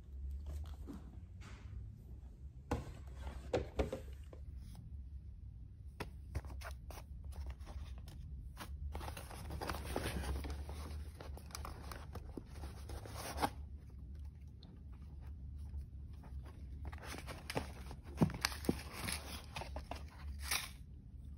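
Handling noise from unboxing: a cardboard box and its foam insert rustling and scraping, with scattered light clicks and knocks as the packed parts are handled, over a low steady hum.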